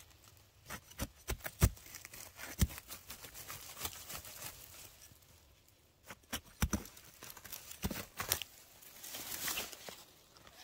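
Dry twigs and forest-floor litter crackling and snapping in a run of sharp cracks, with the loudest snaps a couple of seconds in and another group about two-thirds of the way through, then a softer rustle near the end.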